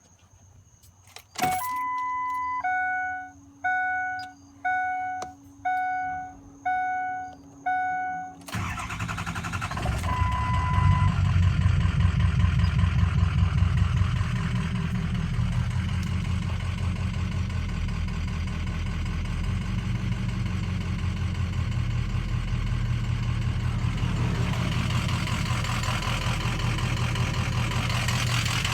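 Truck dashboard warning chime sounding six times in a repeating pattern after key-on. About eight seconds in, a Ford 6.0 Power Stroke V8 turbodiesel starts and settles into a rough idle, which the owner suspects comes from a bad injection control pressure (ICP) sensor.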